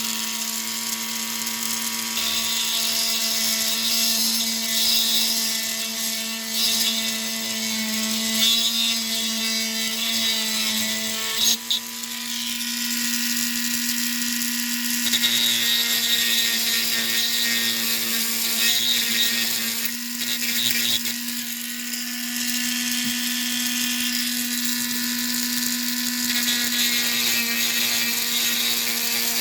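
Small high-speed rotary tool running steadily as it shaves away material around the pin holding an airsoft P90's muzzle brake, with a high grinding hiss. About twelve seconds in it briefly dips, then carries on at a slightly higher pitch.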